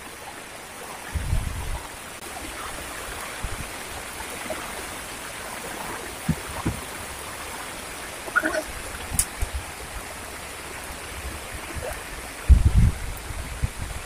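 Heavy rain falling steadily on a river surface and a wooden jetty, a constant hiss. Low rumbles come through about a second in and again near the end.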